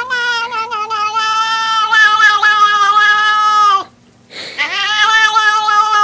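A cat giving a long, weird meow held on one nearly steady pitch. It breaks off a little past the middle, and a second drawn-out meow starts about half a second later.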